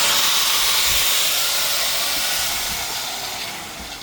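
Ruppower 850 W angle grinder (11,000 rpm) running free with no load, a steady high hiss and whine of its motor and disc; about two and a half seconds in it is switched off and starts winding down, fading and dropping in pitch.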